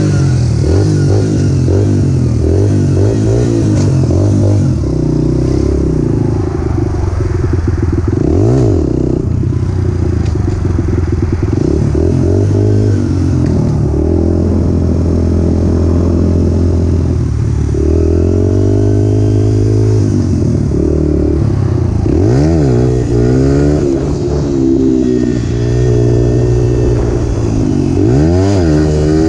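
Honda 100 dirt bike's small single-cylinder four-stroke engine running and revving as the bike pulls away and rides. The pitch climbs and drops several times as it is shifted up through the gears.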